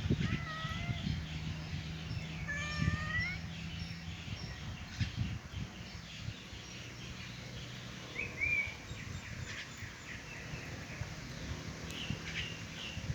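Outdoor ambience with a few short, high animal calls: one about half a second in, a rising one about three seconds in, and another near eight and a half seconds, over a low steady hum.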